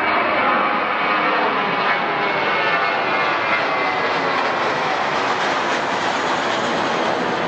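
Jet airliner engines running, a loud steady rush of noise with a faint whine falling in pitch in the first second.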